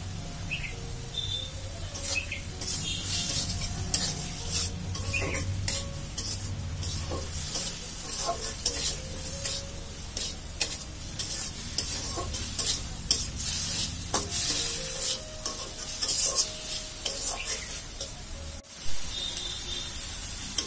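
Spices being fried down in a pan with fried lentil dumplings (bori), sizzling while a spatula stirs and scrapes through the thick masala, with repeated scrapes and clicks against the pan. This is the masala cooking down to the point where the oil separates.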